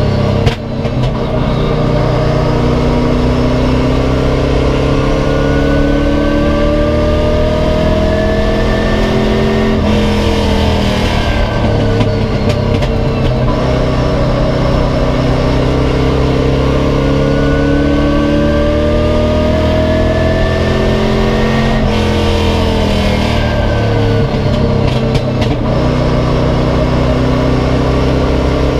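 Race car engine heard from inside the cockpit at speed. Its pitch climbs steadily for long stretches as it accelerates and falls back twice as it slows, over a steady loud drone. A sharp knock sounds just after the start.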